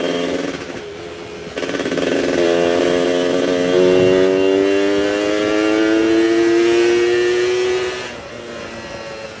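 Suzuki F1ZR 110 two-stroke single-cylinder motorcycle engine running. About a second and a half in it gets louder and its note climbs steadily for about six seconds, then drops back near the end.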